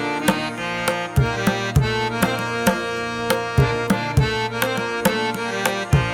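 Background instrumental music: sustained melodic notes over a steady rhythm of sharp drum strokes.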